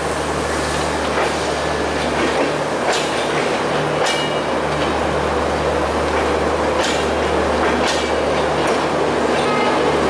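Passenger coaches of a departing Bangladesh Railway intercity express rolling past at low speed, a steady rumble with a low hum. The wheels clack sharply over rail joints several times, at irregular gaps of one to three seconds.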